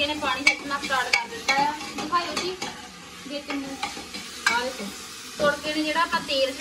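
Steel ladle stirring and scraping frying food in an aluminium pressure cooker: repeated scraping strokes that slide up and down in pitch, with sharp knocks of the ladle against the pot now and then, over the sizzle of the food frying.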